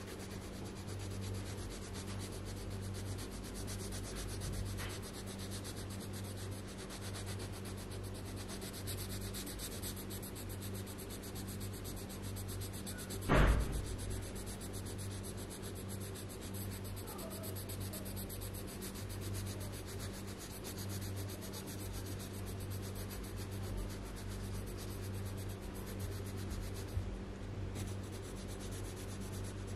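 Coloured pencil scratching on paper in quick, steady shading strokes, over a steady low hum. There is one sharp knock about halfway through.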